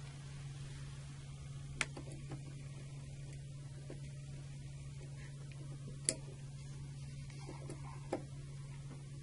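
A small Phillips screwdriver working machine screws into a brass Kirk key lock, giving a few sharp metallic clicks, the loudest about six seconds in, over a steady low hum.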